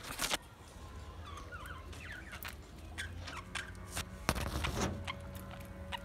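Budgerigars chirping and chattering: short high chirps, squeaks and little pitch glides, with scattered clicks. Two louder noisy bursts come near the start and about four seconds in.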